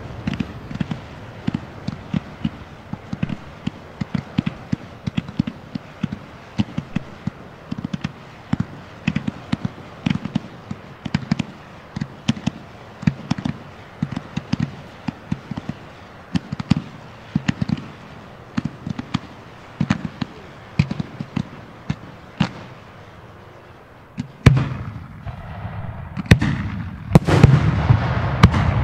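Fireworks going off in a rapid run of sharp bangs, several a second, for most of the stretch. After a short lull comes one loud bang about 24 seconds in, then denser, louder bangs near the end.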